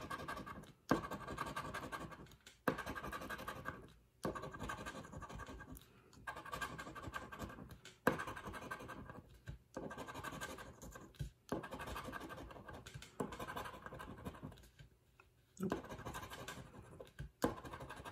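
A coin-style scratcher scraping the latex coating off a paper scratch-off lottery ticket, in repeated short bouts of rasping strokes with brief pauses between. Many bouts begin with a sharp tap as the scratcher comes down on the card.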